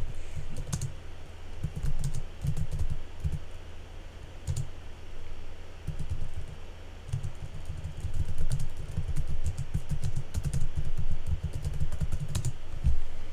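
Typing on a computer keyboard: runs of quick key clicks with short pauses between them, busiest in the second half, over a low steady hum.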